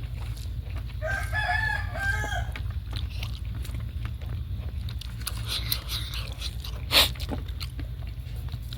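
A rooster crows once about a second in, the call lasting about a second and a half. A sharp knock near the end is the loudest sound, over a steady low hum.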